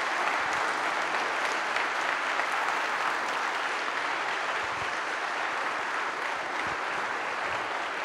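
An audience applauding steadily, a dense sound of many hands clapping.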